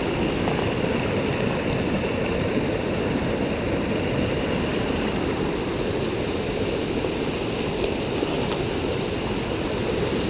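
Mountain river water rushing, a steady unbroken sound.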